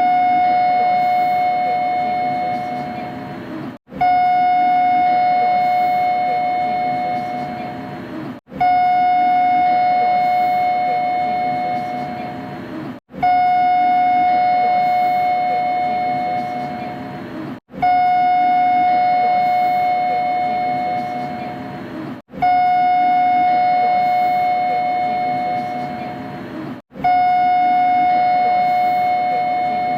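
Door chime of a Kita-Osaka Kyuko 9000 series train, looped: a clear chime tone held about four seconds and fading, repeating about every four and a half seconds, over a haze of carriage background noise.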